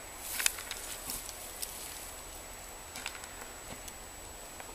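Scattered light footsteps and rustles in dry brush, a small cluster about half a second in and a few more spread through the rest.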